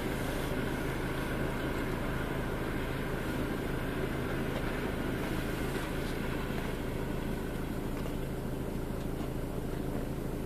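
Steady low rumble and hum of vehicles heard from inside a car's cabin, with an electric commuter train passing over the level crossing.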